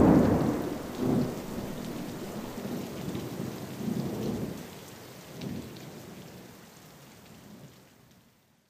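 Rain falling with thunder: a loud crack and rumble at the very start, then lower rolls of thunder about one, four and five and a half seconds in. The whole thing fades out near the end.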